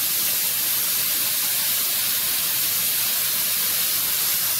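Spray gun hissing steadily as it sprays a solvent-based peelable coating mixed with webbing agent onto a bicycle wheel, without a break.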